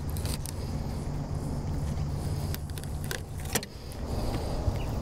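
Knife working through a flathead on a plastic cutting board during filleting, with a few short clicks and taps, over a steady low hum.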